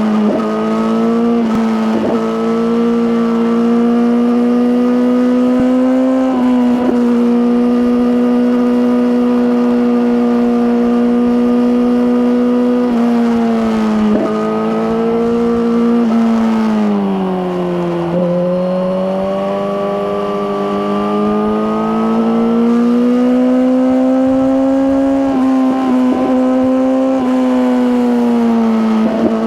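Suzuki GSX-R1000R's inline-four engine through an Akrapovic slip-on exhaust, heard while riding at steady high revs. There are a few brief dips, and a slower drop in revs about 17 seconds in that climbs gradually back up.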